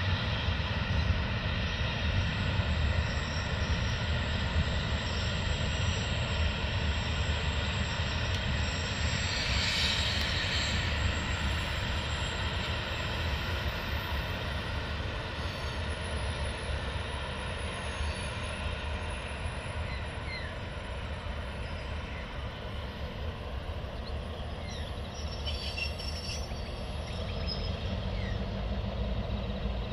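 Clyde-GM GM-class diesel-electric locomotives, whose EMD 567 two-stroke diesel engines give a steady low drone, hauling a train across a steel trestle viaduct. The drone sits over the rumble of the passing train.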